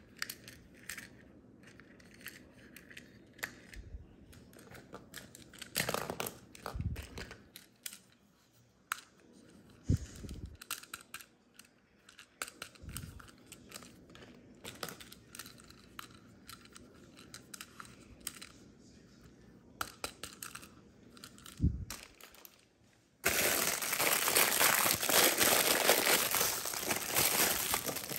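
Small hard-plastic toy figures clicking and knocking as they are handled and set down on a stone countertop. Near the end, a plastic bag is handled and crinkles loudly.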